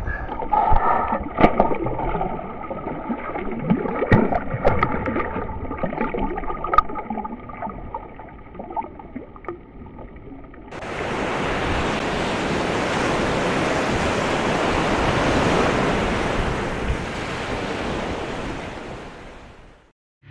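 Water sloshing and splashing beside a kayak, with several sharp splashes, while a big red drum is held over the side. About halfway through a loud, steady rushing of water cuts in, then fades out near the end.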